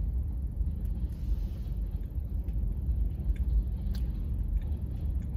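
Steady low rumble of a car idling, heard inside the cabin, with a few faint clicks of chewing as a mouthful of donut is eaten.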